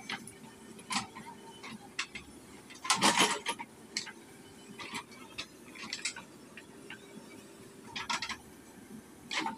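A JCB 3DX backhoe loader digging: sharp metallic clanks and clinks from its bucket and boom linkage about once a second, loudest about three seconds in, over a faint steady engine hum.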